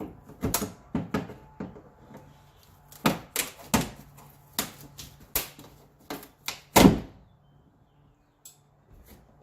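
About a dozen sharp, irregular knocks and taps from hand tools being worked at the fuel pump. The loudest strike comes about seven seconds in, and then the knocking stops.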